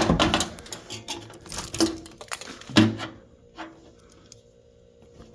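Knocks and clatters of the microwave's parts and packaging being handled and moved: several sharp knocks in the first three seconds, the loudest about three seconds in, then quieter rustling and handling.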